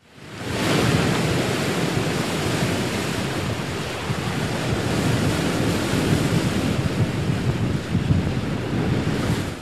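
Steady rush of ocean waves and surf that fades in over the first second and cuts off abruptly at the end.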